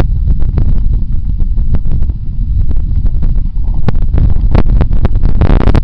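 Wind buffeting the small onboard camera's microphone: a heavy low rumble with frequent crackling pops, and a brief louder gust of noise near the end.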